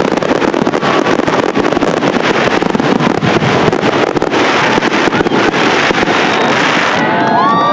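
Fireworks finale barrage: many shells bursting and crackling in rapid, overlapping succession. About seven seconds in the barrage stops and a crowd starts cheering and whistling.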